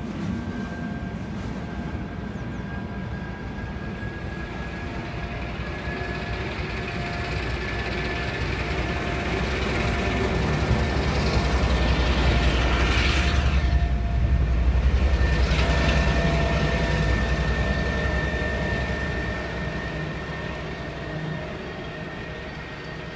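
DR class 132 'Ludmilla' diesel locomotive running with its train, its deep engine rumble swelling to a peak about halfway through and then fading away. A steady high whine sounds above the rumble.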